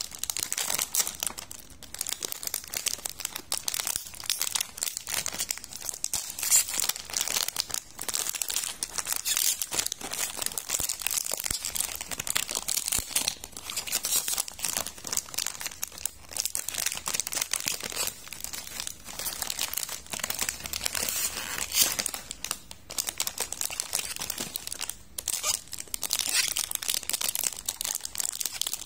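Plastic biscuit packaging crinkling and rustling continuously as it is handled, a dense run of crisp crackles. It comes from a twist-tied outer bag and a small Julie's Peanut Butter biscuit wrapper.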